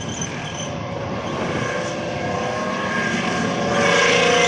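Chieftain tank's Leyland L60 two-stroke multi-fuel engine running as the tank drives, with a whine over the engine note. It grows louder about three and a half seconds in.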